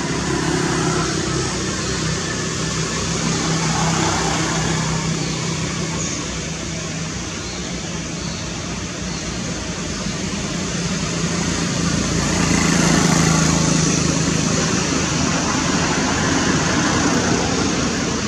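Background motor-vehicle noise: a steady engine hum under a rushing wash of road noise, swelling louder about four seconds in and again past the middle as vehicles pass.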